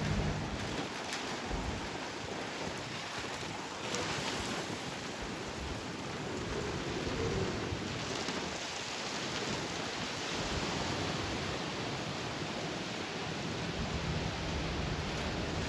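Severe thunderstorm winds gusting with heavy rain, a steady rushing noise with wind buffeting the microphone and a stronger gust about four seconds in.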